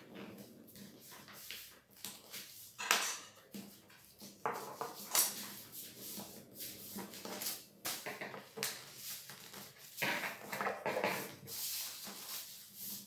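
A sheet of paper being folded and creased flat by hand on a table: irregular rustling and crinkling, with louder swishes about 3 s and 5 s in and again between 10 and 11.5 s.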